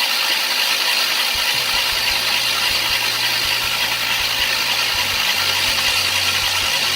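Starter motor cranking a 3800 V6 (L26) with no spark plugs in, a steady even churn with no firing, turning the engine over to prime the oil pump and push oil up to the lifters.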